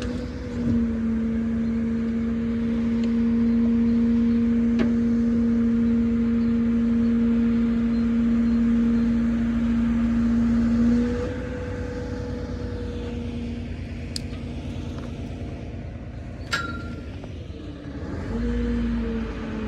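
Truck-mounted crane working: its hydraulics whine at a steady pitch over the running truck engine, easing off about 11 seconds in and returning briefly near the end. A few sharp clicks or knocks are heard.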